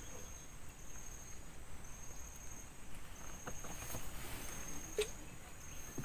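Insects trilling outdoors: a thin, high buzz that comes and goes in short trills about once a second, with a faint click about five seconds in.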